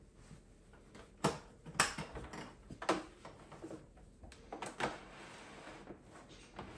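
Handling of a stainless espresso machine with a built-in grinder: a series of sharp metallic clicks and knocks as its drip tray and parts are gripped and shifted, followed by a softer scraping noise.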